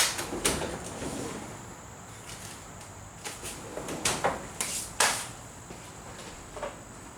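A few sharp knocks and clatters of hard parts and tools being handled and set down: one at the start, a cluster around four to five seconds in, and a faint one near the end.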